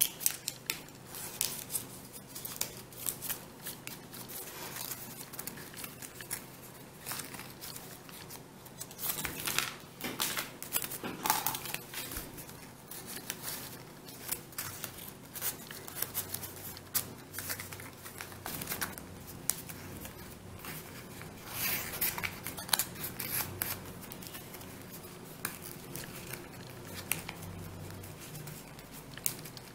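Origami paper rustling and crinkling in the hands as folded paper modules are slotted together and creased, a run of short irregular crackles that grows louder in a few spells.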